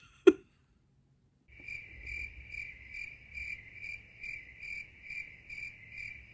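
A sharp click, then a cricket chirping sound effect that comes in about a second and a half later: a high, steady chirp pulsing a little over twice a second. It is the stock 'crickets' gag for an awkward silence.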